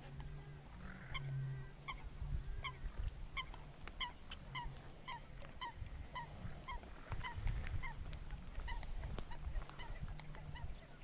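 A bird calling over and over, a long run of short bent notes about two a second, over a low rumble.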